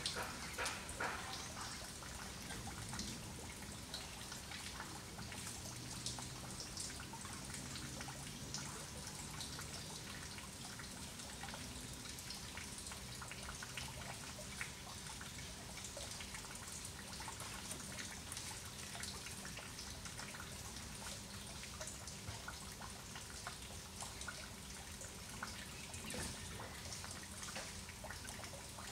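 Faint outdoor background of scattered light ticks and drips over a low steady hiss, with a faint steady hum underneath.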